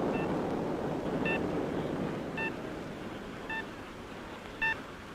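The rumble of an atomic bomb explosion dying away, with short electronic beeps about once a second over it, five in all.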